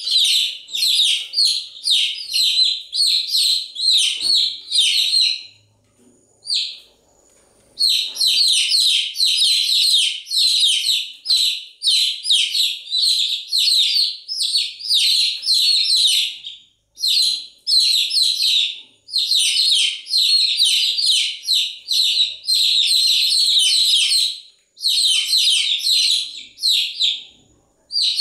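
Baby chicks chirping nonstop in quick runs of high peeps, with a short lull about six seconds in.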